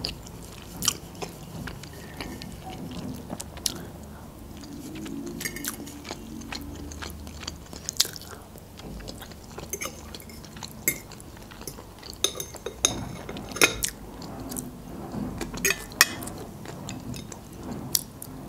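Close-up chewing and wet mouth sounds of someone eating stuffed bell peppers, with sharp clicks of a metal fork tapping and scraping on a plate scattered throughout.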